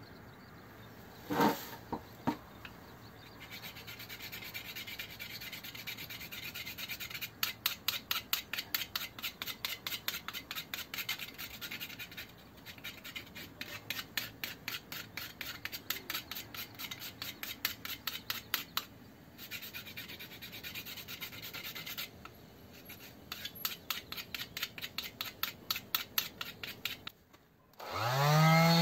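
A small fatwood ring is rubbed back and forth on the sandpaper of a Tajima SA-5DC hand sander, in rapid scraping strokes of about four a second with short pauses, after two sharp clicks at the start. Near the end an electric sander switches on and its motor whines up to speed, the loudest sound here.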